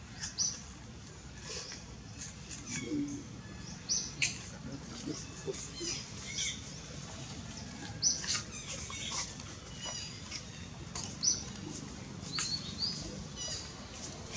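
Scattered short, high-pitched chirps and squeaks, some in quick repeated trills, over a faint steady low background.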